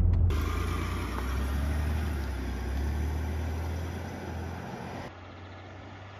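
Range Rover running on the road: a steady low engine and road rumble that fades over the first few seconds, with the sound changing abruptly about a third of a second in and again about five seconds in.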